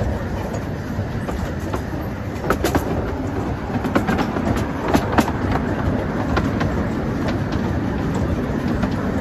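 Miniature railway train running along the track, heard from the carriage: a steady low rumble of wheels on rail with irregular sharp clicks and knocks, several from about two and a half seconds in, as the wheels cross rail joints.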